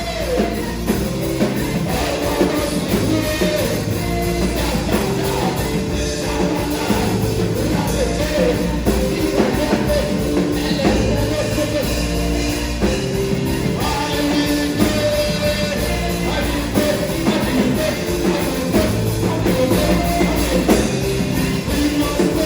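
Worship band music with a steady bass line and singing over it.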